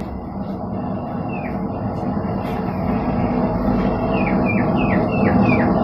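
A small bird chirping: one falling chirp about a second in, then a quick run of five falling chirps near the end, over a steady rushing noise.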